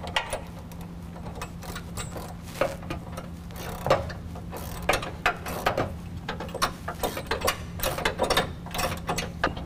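Socket ratchet clicking in irregular runs as a 19 mm socket tightens the bolts joining the two steel mounting brackets, over a steady low hum.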